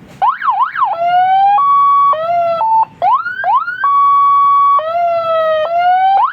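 Electronic police-style siren on a scooter being test-sounded after its wiring was repaired. It switches through several tones: a fast up-and-down yelp, steady held tones and rising sweeps, with a short break near the middle.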